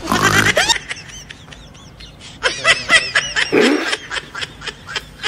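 Laughter: a run of short, rapidly repeated bursts about halfway through, after a brief pitched vocal sound at the very start.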